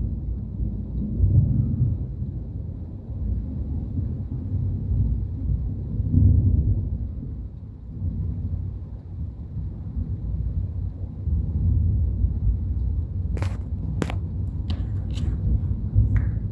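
Thunder rolling in long low rumbles that swell and fade, from nearby lightning strikes. A few sharp clicks come in near the end.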